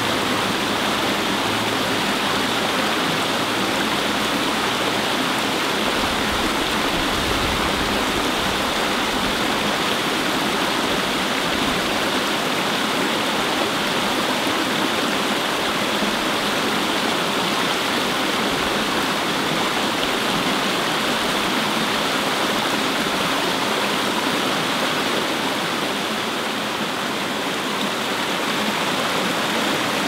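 Shallow stream babbling over stones in a small cascade: a steady, unbroken rush of water.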